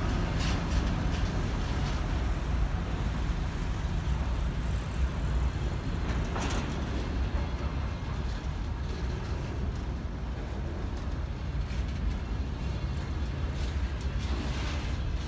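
M62 diesel locomotive's two-stroke V12 engine running with a heavy low rumble as the locomotive passes, the rumble easing after a few seconds as its train of covered freight wagons rolls by, with an occasional clack of wheels on the rails.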